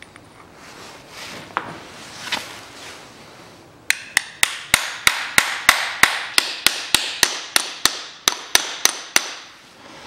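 A hammer tapping a steel sleeve used as a drift, driving a bearing onto a shaft of a manual gearbox: about twenty sharp, ringing metal strikes, roughly four a second, starting a few seconds in and stopping shortly before the end. Before them, a few light clicks of metal parts being handled.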